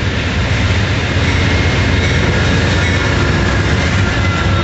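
Amtrak Auto Train's diesel locomotive and double-deck cars passing close by at speed: a loud, steady rumble of engine and wheels on the rails, with faint thin high tones over it.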